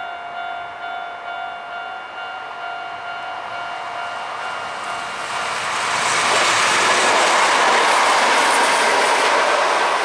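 A Japanese level-crossing alarm rings steadily. About halfway through, a two-car Kintetsu limited express electric train comes past with rising rail and wheel noise, loudest near the end, while the alarm keeps ringing.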